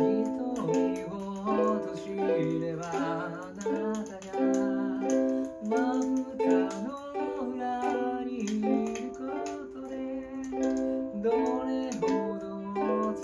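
Ukulele strummed in chords by a learner practising, with the chords changing about every second.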